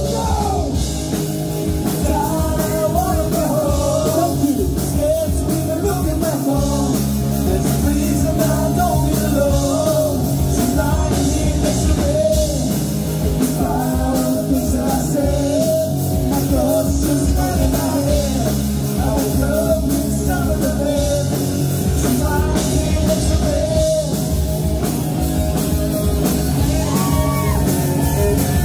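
Live rock band playing loud: a singer over electric guitars, bass guitar and a drum kit.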